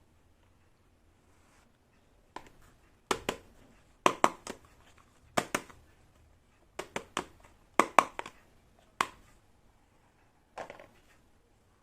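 Small plastic play-kitchen toy pieces clicking and clacking against each other as they are handled and set down, in irregular clusters of sharp knocks.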